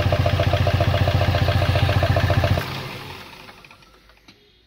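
Toyota 2KD four-cylinder common-rail diesel engine being cranked on the starter, a rapid even pulsing that cuts off about two and a half seconds in and then dies away.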